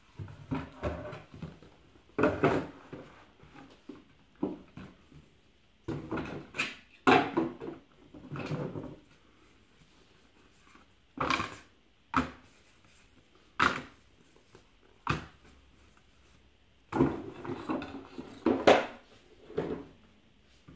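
Thick cardboard game boards being unfolded, handled and set down on a wooden table: an irregular run of soft knocks, slaps and brief sliding rustles with short quiet gaps between them.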